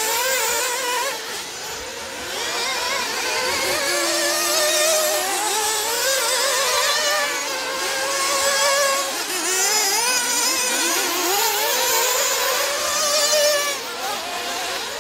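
Several 1/8-scale nitro RC buggies' small two-stroke glow engines running at high revs, overlapping, their pitch rising and falling constantly as the cars accelerate and brake around the track.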